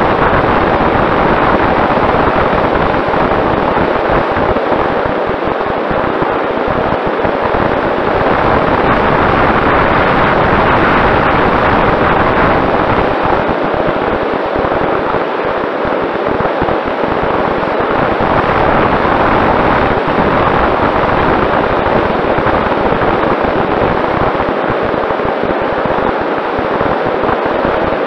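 Steady rushing of wind and propeller noise picked up by a camera on a Mini Talon RC plane in level flight, with a faint constant whine from its Sunnysky 2212 brushless motor.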